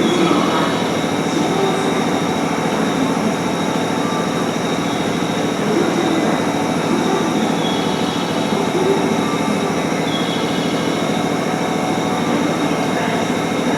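JR West electric train running along the station platform: a steady rumble of wheels and traction equipment, with a few brief high wheel squeals.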